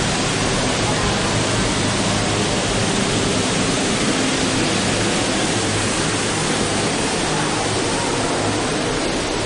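Steady, even rush of falling water in an indoor water installation, loud and unbroken.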